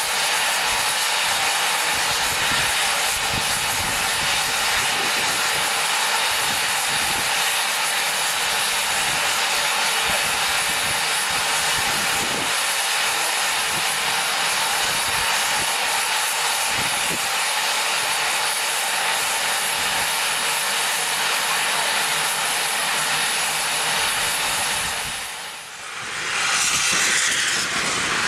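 Steady hiss of steam escaping from a standing saddle-tank steam locomotive. Near the end a louder blast of steam follows as the cylinder drain cocks blow out low beside the wheels.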